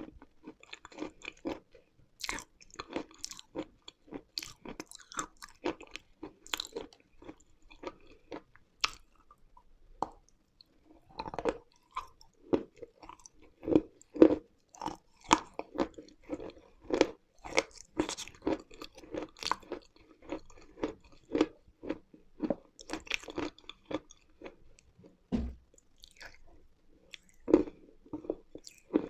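A person biting and chewing crunchy, dry edible mineral lumps close to the microphone, in a steady run of sharp crunches about one or two a second, with a short lull partway through.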